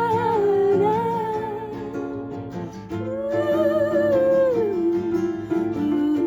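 A female voice sings a wordless melody with vibrato over acoustic guitar chords. There are two phrases, the second rising and then sliding down, with a lower held note near the end.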